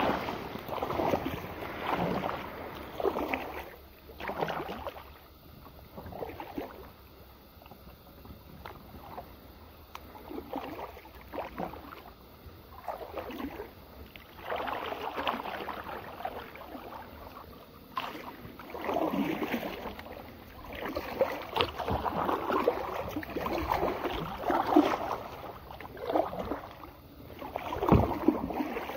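Kayak paddle strokes splashing and dripping in calm water, with the hull swishing through lily pads and pickerelweed. The strokes go quiet for several seconds in the middle, then pick up again.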